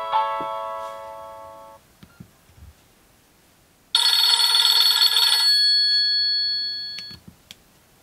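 Nokia N70 ringtones: the last notes of one melodic ringtone die away over the first couple of seconds. After a short silence, a second, brighter ringtone starts about four seconds in, sounds for about a second and a half, then rings out.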